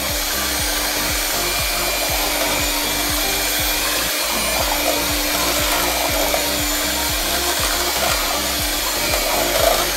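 Electric hand mixer running steadily, its beaters whipping a thin liquid mixture in a steel pot, with a constant motor hum.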